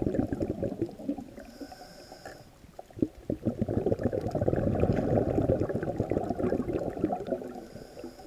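Scuba diver's exhaled air bubbling out of the regulator, heard muffled through an underwater camera housing. There are two long bursts of bubbles with a quieter pause between about one and three seconds in.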